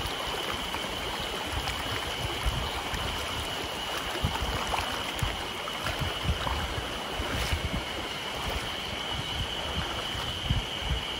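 Shallow mountain stream running over rocks: a steady rushing hiss, with a steady high-pitched buzz over it and scattered low thuds.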